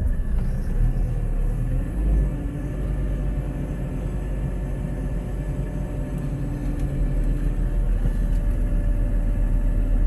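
JCB telehandler's diesel engine running under way, heard from inside the cab: a steady low rumble with a faint, even engine tone.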